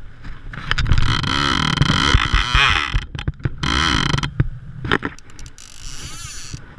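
Fly reel's click drag buzzing as line is reeled in while playing a hooked fish. It is loudest for about the first three and a half seconds with a short break in the middle, then fainter. Wind and handling rumble sit on the head-mounted camera's microphone.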